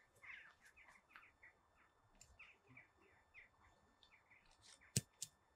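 Small birds chirping in short, quick calls, faint and scattered throughout. About five seconds in comes a single sharp click, followed by a fainter one.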